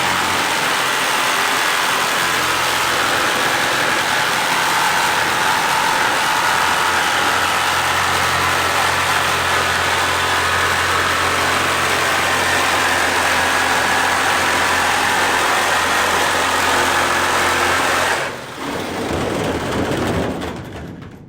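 Power cutting tool running steadily as it cuts along a marked line in the car's sheet-metal roof, stopping abruptly near the end, followed by a brief rougher spell of the same kind of noise.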